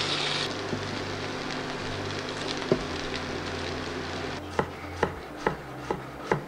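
Cubed potatoes sizzling in fat in a stainless steel frying pan, with a single knock near the middle. From about four and a half seconds in, a knife chops green onions on a wooden cutting board, five strikes about two a second.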